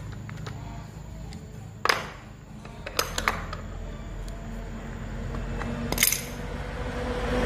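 A few sharp metallic clinks and knocks, about four, from tools and small metal parts being handled while a handheld electric wood router is taken apart, over a faint low hum.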